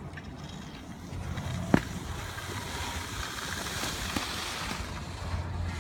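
Wind rumbling on the microphone, joined by the hiss of skis scraping over packed snow as a skier slides up and stops close by. A single sharp knock about two seconds in stands out above the rest.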